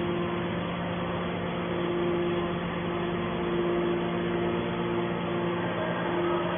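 Hydraulic scrap metal baler running, its motor and hydraulic pump giving a steady hum with two constant tones.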